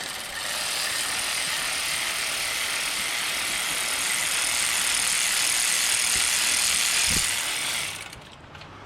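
Electric ratchet running steadily, spinning out an alternator mounting bolt, then stopping about eight seconds in.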